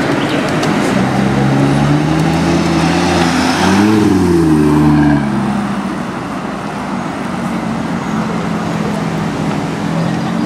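Audi RS Q3's turbocharged five-cylinder engine accelerating past, its note climbing, with a quick rise and fall in pitch about four seconds in. It then fades as the car pulls away, over street traffic noise.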